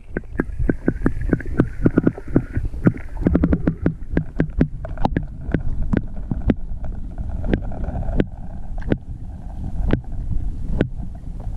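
Muffled underwater sound picked up by a GoPro held below the surface: a low rumble with irregular sharp clicks and knocks, many in quick succession over the first few seconds, then sparser.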